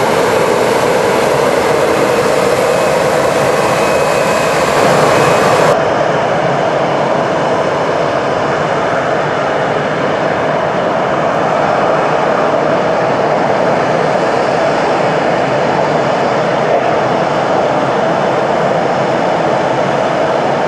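Boeing 737-700 Business Jet's twin CFM56-7B turbofans running at taxi power: a steady jet roar. About six seconds in, the high hiss drops away abruptly.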